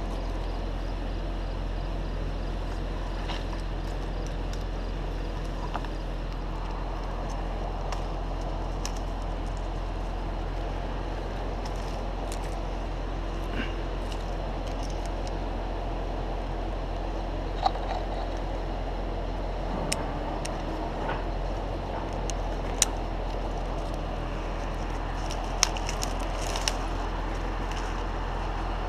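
Crane's engine running steadily as a low drone, with a few sharp clicks or knocks in the second half.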